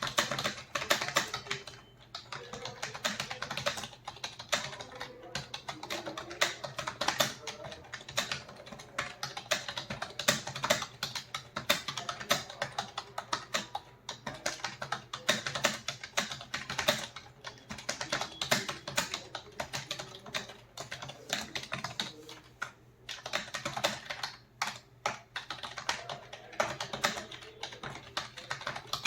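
Fast, continuous typing on a computer keyboard, the keys clicking in quick runs with a few brief pauses.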